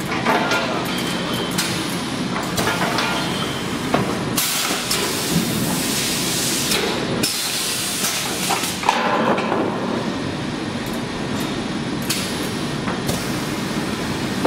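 Semi-automatic four-cavity PET stretch blow moulding machine cycling: long bursts of compressed-air hiss, each a few seconds, as the bottles are blown and the air vented, with sharp metallic knocks and clanks from the mould and pneumatic cylinders.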